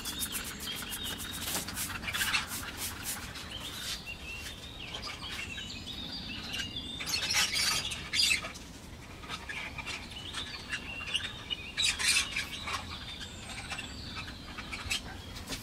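Small birds chirping and twittering, with scattered sharp clicks in the first couple of seconds.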